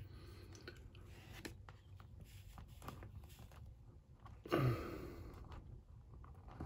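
Faint handling of a plastic action figure being posed: small clicks and rubbing of plastic joints and hands. About four and a half seconds in, a short, louder breathy sound.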